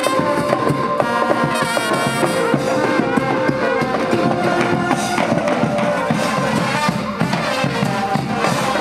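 Brass band music: brass instruments playing a melody over steady drum and percussion hits.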